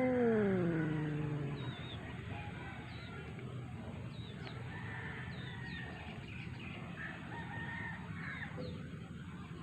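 Agitated cat's long, low warning yowl, falling in pitch and dying away about two seconds in: the threat call of a cat still aggressive after a fight. Faint bird chirps follow.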